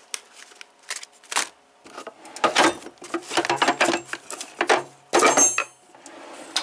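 Steel mechanic's toolbox being handled: a run of metal clatters and knocks as a drawer and the tools in it are moved. The loudest is a ringing metallic clank about five seconds in.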